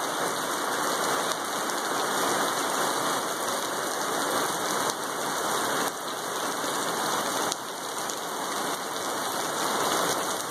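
Heavy rain pouring steadily onto wet pavement in a severe thunderstorm, an even hiss throughout.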